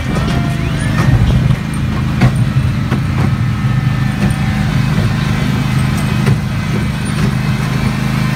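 Engine of a trackless train ride running steadily as it pulls the passenger cars, with scattered clicks and knocks.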